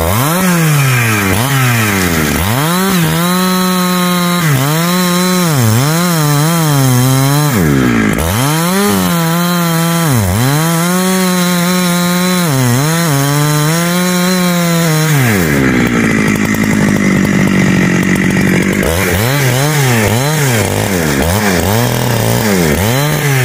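Husqvarna 365 two-stroke chainsaw cutting into a tree trunk at high revs. The engine speed sags and picks up again and again as the chain bites into the wood, with a steadier stretch about two-thirds of the way through.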